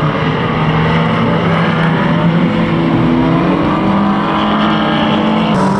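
Several pre-1980 banger racing cars' engines revving together, their pitches rising and falling against each other as the cars race. The mix shifts abruptly near the end.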